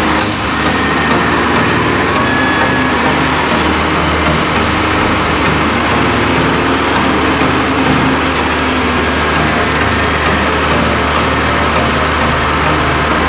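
Heavy diesel engines running steadily with a constant low hum: a HOWO dump truck's engine driving the hydraulic hoist as it tips up its sand-loaded bed, with a wheel loader's engine working alongside.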